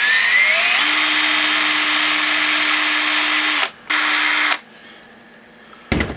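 Cheap cordless drill spinning a small grinding bit inside a 3D printer's hot-end nozzle block to smooth out burrs. The motor spins up with a rising whine and runs steadily for about three and a half seconds. It stops briefly, then runs again for under a second. Two short knocks near the end.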